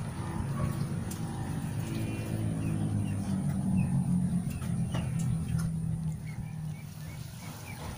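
A low engine hum swells to its loudest about halfway through and then fades away, like a motor vehicle going past. Short bird chirps come over it.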